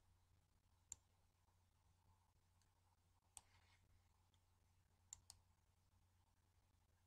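Computer mouse clicks, faint: four short clicks, the last two a quarter second apart, over a low steady hum.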